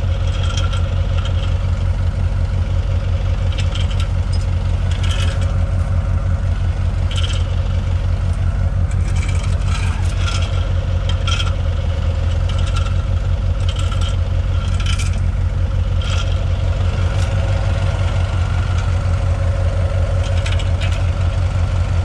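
A compact tractor's diesel engine idles steadily close by, with an even low pulse. Over it come scattered metal clinks and scrapes as a tow chain is hooked to the tractor's rear hitch.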